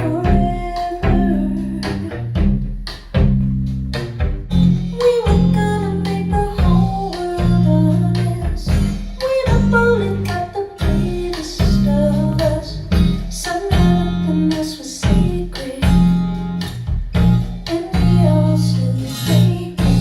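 A song with plucked guitar, a bass line of repeated low notes, and a singing voice, played back over loudspeakers.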